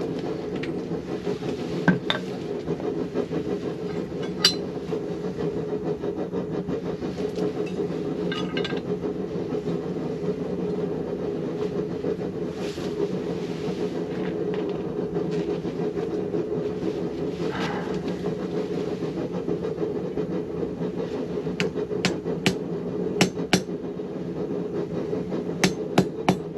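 Hammer striking hot steel on an anvil while forging a leather awl: two single ringing blows early, then a quick run of about eight blows near the end, over a steady low mechanical hum.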